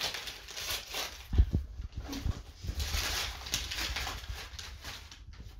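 Tissue paper rustling and crinkling as a present is pulled from a gift bag, with a couple of dull knocks about a second and a half and two seconds in.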